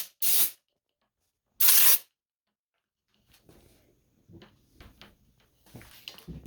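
Short blasts of compressed air from an air blow gun, each well under a second: one right at the start and another about two seconds in. Faint clicks and handling noises follow.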